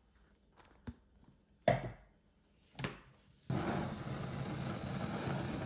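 Three light knocks of dishes being handled on a table, the middle one the loudest. About two-thirds of the way through, a steady rushing room noise begins suddenly and holds.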